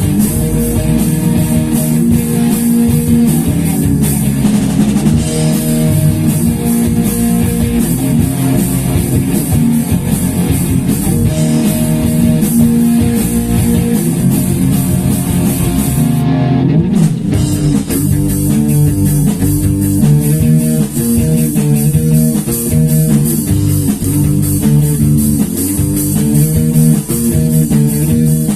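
A rock band playing without vocals: guitars, bass guitar and a drum kit with steady cymbal strokes. About 17 seconds in the cymbals drop out briefly, and the band comes back with choppy, stop-start chords.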